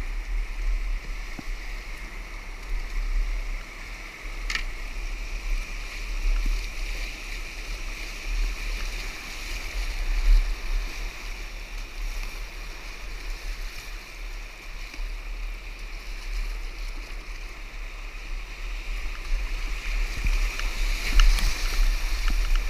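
Whitewater of a shallow, rocky Class 3 rapid rushing steadily around a kayak running it, with a sharp splash about four seconds in and more splashing near the end.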